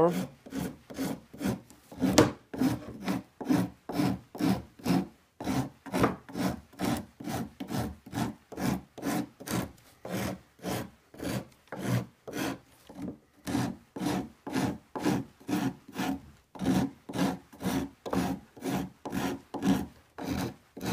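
Stanley Surform half-round rasp filing down a foregrip of Syncork rings in quick, even back-and-forth strokes, about two to three a second, with one brief pause midway. The edges of the rings are being knocked down to shape the grip.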